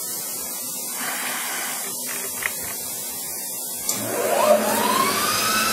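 Millport Blue Rhino 1660 bed mill running with a steady hum and hiss. About four seconds in, after a click, a motor on the mill winds up in a rising whine that levels off into a steady tone.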